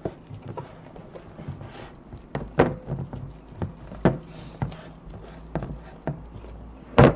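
Slime being mixed and handled in a bowl: irregular short clicks and knocks, with the loudest knock near the end.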